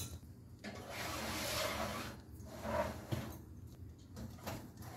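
Metal cake pans being slid onto an oven's wire rack: a soft scraping hiss, then a few light clinks of pan against the rack.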